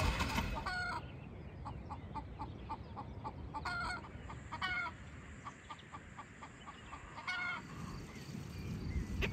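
Domestic chickens clucking: runs of quick short clucks, about four a second, broken by a few louder short squawking calls. During the first second a car engine is still heard running before it cuts off.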